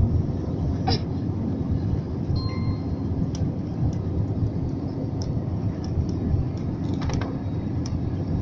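Steady rumble of an airliner's jet engines and rushing airflow, heard from inside the passenger cabin during the descent on final approach to landing.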